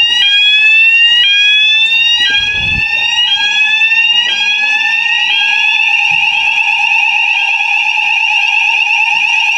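Building fire alarm sounders going off during a weekly call-point test: a repeated rising whoop about once a second that switches about five seconds in to a steady high tone, over a second steady lower tone.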